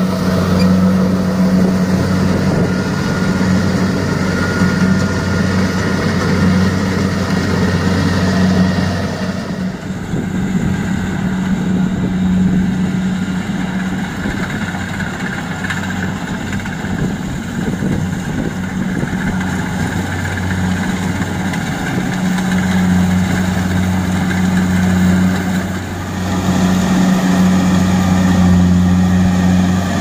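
Kubota DC-70 Plus rice combine harvester running under load while cutting and threshing rice: a steady, loud diesel engine drone with the whir of the threshing machinery. The sound grows quieter and duller from about ten seconds in and comes back full near the end.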